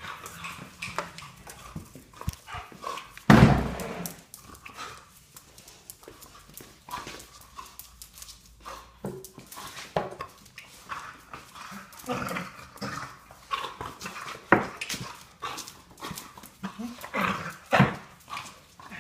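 A dog making a run of short, varied weird noises, with a loud one about three and a half seconds in and others near the end.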